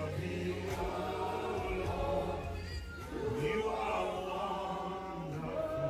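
Church worship music: voices singing drawn-out, wordless lines over sustained keyboard and bass notes.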